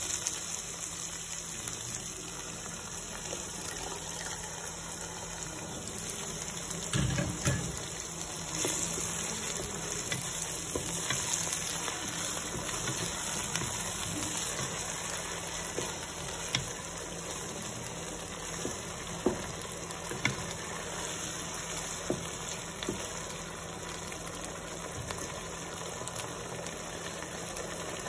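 Diced bell peppers and onion frying in a nonstick pot, a steady sizzle, while a wooden spatula stirs and scrapes through them with a few sharp taps against the pot. A steady low hum runs underneath.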